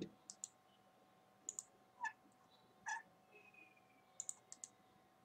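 Faint, scattered clicks of a computer mouse, including two quick double-clicks, spaced roughly a second apart.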